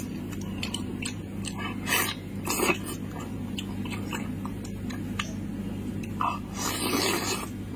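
Wet chewing and mouth smacks of a man eating spiced sheep's head meat by hand, with a few short smacks and a longer noisy stretch near the end. A steady low hum runs underneath.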